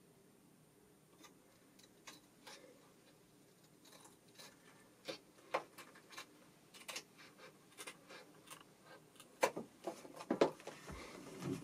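Scissors cutting through a sheet of inkjet photo paper laminated with adhesive transfer film: irregular small snips and clicks, sparse at first, more frequent later and loudest near the end.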